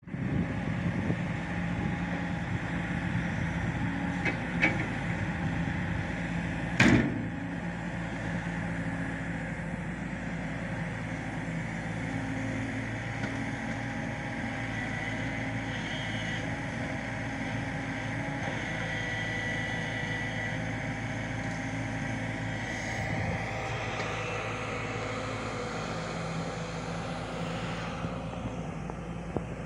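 Hyundai 140 tracked excavator's diesel engine running steadily while it digs, with a single sharp clank about seven seconds in.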